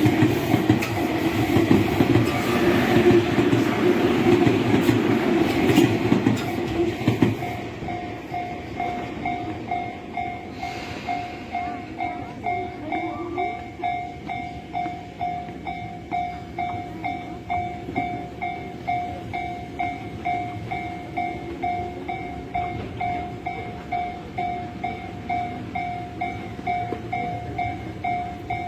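Electric commuter train on the Tobu Tojo Line passing over a level crossing, wheels clacking, until about seven seconds in, over the crossing's electronic warning bell. After the train has gone the bell keeps ringing in an even ding-ding about one and a half strokes a second, a sign that the crossing stays closed.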